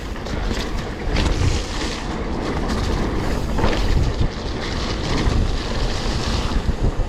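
Mountain bike on Specialized Cannibal tyres riding down a rough, wet trail: wind rushing over the microphone over a steady tyre and ground rumble, with many short knocks and rattles from the bike over the rough ground.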